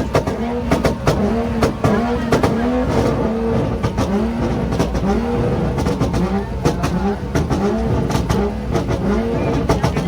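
Mazda's engine revved again and again against a two-step launch-control rev limiter, about one rev every 0.7 s, each rising in pitch and broken up by sharp pops and bangs from the exhaust.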